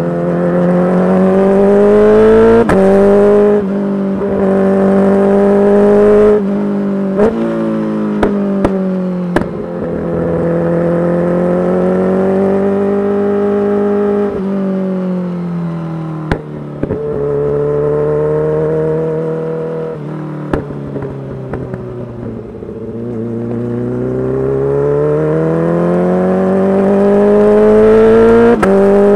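Kawasaki Ninja H2's supercharged inline-four running through a full titanium exhaust, pulling up through the gears with a quick drop in pitch at each shift. It then eases off, with a few sharp exhaust pops, and builds revs again near the end.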